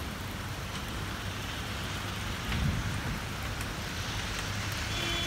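Steady hiss of rain falling on wet pavement, with a low rumble swelling briefly about halfway through and a high pitched tone starting just at the end.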